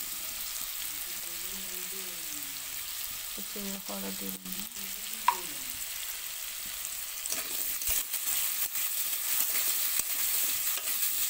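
Cubed potatoes sizzling as they fry in hot oil in a kadai, with a single short ping about halfway. In the second half the frying grows louder and crackles as the potatoes are stirred.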